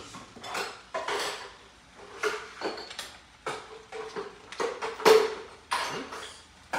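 Cooking utensils scraping and knocking irregularly against a stainless steel skillet as ground beef and chorizo are broken up, with a strong knock about five seconds in.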